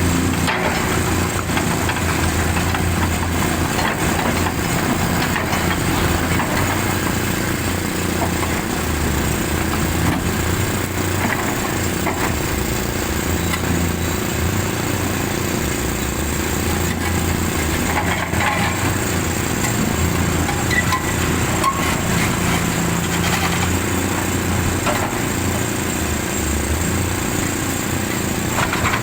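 Large 450-class excavator's diesel engine running steadily, with the engine note shifting a little as it works.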